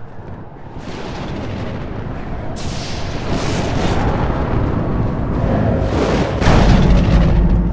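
Cinematic thunderstorm sound effects: a rising rumble broken by several sharp thunder cracks, building to the loudest boom about six and a half seconds in, followed by a deep rumble.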